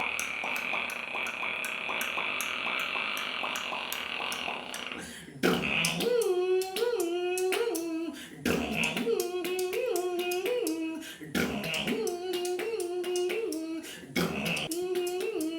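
Vocal mimicry of sound effects: first a steady high-pitched tone with rapid clicks for about five seconds, then three repeated warbling, pitched vocal phrases about two and a half seconds each.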